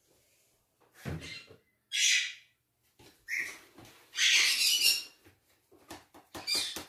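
A large pet parrot squawking: two loud, high calls about two and four seconds in, with a shorter call between them. A dull knock comes about a second in.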